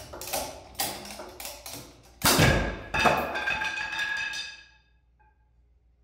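Large ratchet strap being cranked, clicking about twice a second, then a loud crack as the 1-inch wooden dowel under the strap snaps about two seconds in. A moment later comes a second bang with a ringing that fades away over a second or so.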